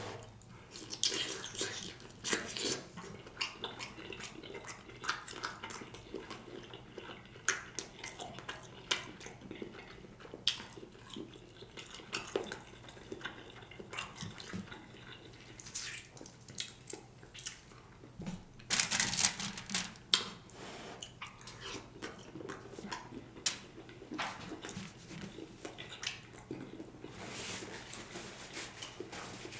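Close-miked mouth sounds of a man chewing smoked turkey leg meat: wet smacking and sticky clicks scattered throughout, with two louder noisy bursts, one about two-thirds of the way through and one near the end.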